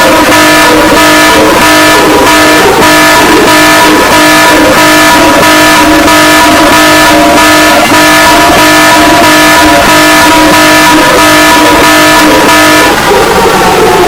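Emergency Alert System alarm tone, very loud and harsh, several steady pitches sounding together and pulsing about twice a second. It slides down in pitch near the end.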